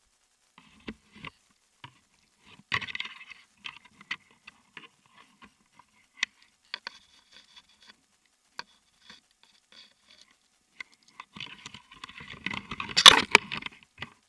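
Climbing rope and harness hardware being handled: scattered light clicks and rustles of rope, metal carabiners and clothing, with a louder rustling clatter near the end.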